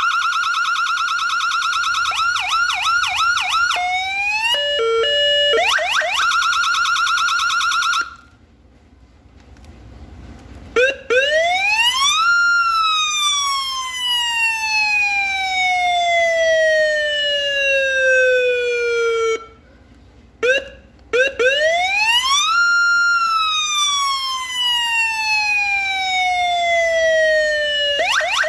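Electronic siren or alarm cycling through tone patterns: a steady high tone, a run of quick falling chirps, a few stepped tones, then a steady tone again; after a pause of about two seconds, a tone sweeps up and then glides slowly down for several seconds, and this repeats after a short break. Near the end a fast rising sweep begins.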